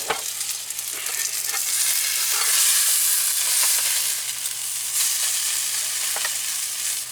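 Food sizzling as it fries in a pan, a steady hiss that swells louder in the middle, with a few light clicks.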